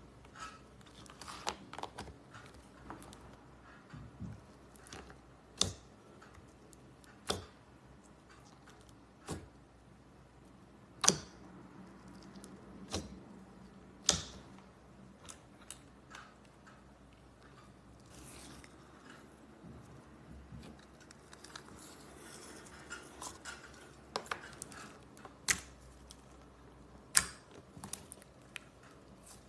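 Slime being squeezed and played with by hand: sharp clicks and pops at irregular intervals, every second or two, over a faint, soft crackling.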